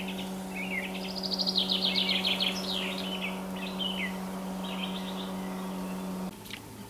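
Songbirds singing: a fast trilled phrase, then several short falling notes, over a steady low hum that stops abruptly near the end.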